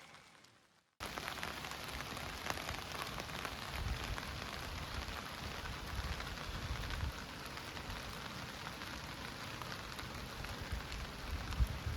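Steady rain falling, a constant hiss with the patter of individual drops, starting suddenly about a second in.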